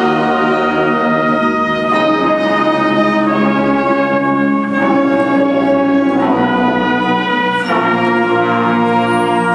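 High school marching band's brass and winds playing long held chords that change every second or two, loud and full.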